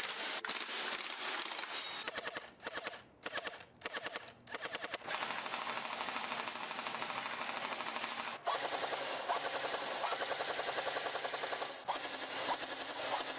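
Airsoft gun firing on full auto in rapid strings of shots, with a few short bursts and pauses between about two and five seconds in, then long continuous strings.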